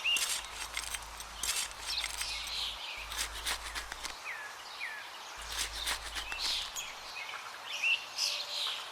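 Small birds chirping and calling repeatedly in short, high rising and falling notes, with scattered light clicks in between.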